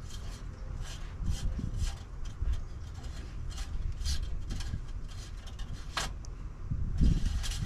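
Handling noise: scattered light clicks and rustles over a steady low rumble, with a sharper click about six seconds in and a cluster of them near the end.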